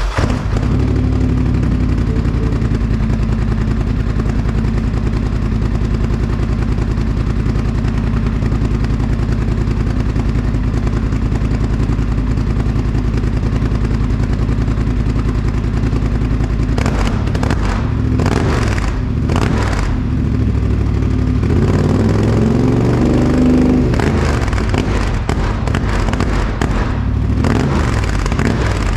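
2021 Polaris Sportsman 850 Highlifter's twin-cylinder engine idling through a newly fitted Big Gun slip-on exhaust, just after its first start, with a deep, raspy note and a slight chop in the idle. About two-thirds of the way in it gets a few quick throttle blips, then one longer rev up and back down.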